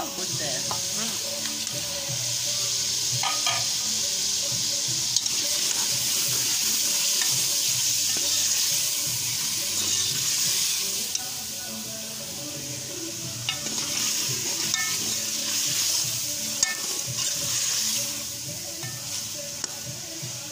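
Tomato masala with chicken pieces sizzling steadily in an aluminium pot while a steel ladle stirs it, with a few sharp clinks of the ladle against the pot.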